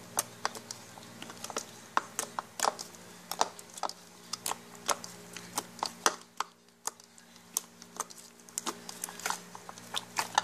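Sticky slime being kneaded and squeezed by hand in a plastic bowl, making a run of irregular sharp clicks and pops, a few each second, over a steady low hum. The slime has just had activator mixed in and is still sticky.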